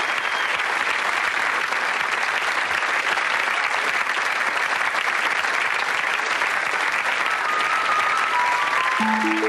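Studio audience applauding steadily. Near the end, a short run of single musical notes starts up over the clapping, stepping up and down in pitch.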